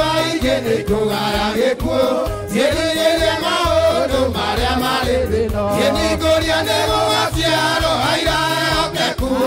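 A group of men singing a church hymn in unison into handheld microphones, amplified through loudspeakers, over low bass notes that step from one held note to the next.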